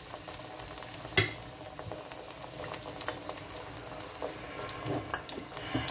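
Sesame-coated dough ball frying in hot oil in a steel pot: a steady, quiet sizzle and crackle. A sharp click about a second in, and a few lighter ticks near the end.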